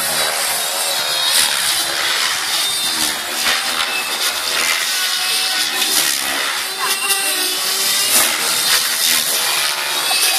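Gaui X7 electric RC helicopter with a Scorpion motor flying overhead: a steady motor and rotor whine whose pitch rises and falls as it manoeuvres.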